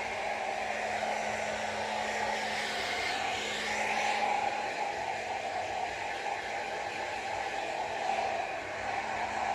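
Old hair dryer running steadily, a continuous rush of air over a low motor hum. The hiss of the air swells briefly about three to four seconds in.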